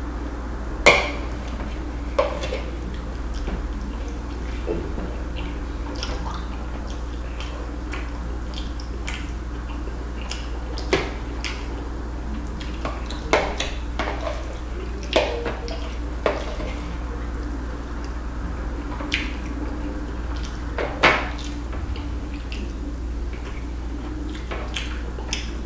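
Metal spoon clinking and scraping against a glass bowl in scattered sharp clicks, the loudest about a second in and again about 21 seconds in, over a steady low hum.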